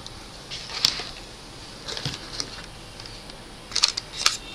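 Handling noises at a workbench: short clicks and rustles of cables, plugs and cardboard packaging being moved by hand, coming about a second in, around two seconds in, and in a quick cluster near the end.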